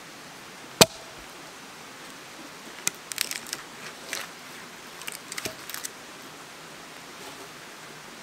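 Wooden knocks and clatters as freshly sawn log rounds are handled and moved: one sharp knock about a second in, then a scatter of lighter knocks in the middle, over a steady background hiss.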